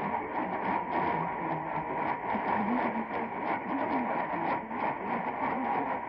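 AM radio on a weak, fading station: steady hiss with frequent crackles of lightning static over faint programme audio, and a steady whistle tone running through it.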